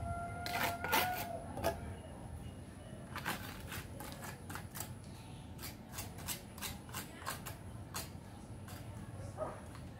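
Hand trowels clinking together, with a brief metallic ring about a second in, followed by a string of light, irregular clicks and taps.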